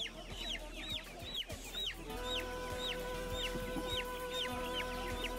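Chicks peeping in a market cage: repeated high, falling chirps, about two a second. Background music with held notes comes in about two seconds in.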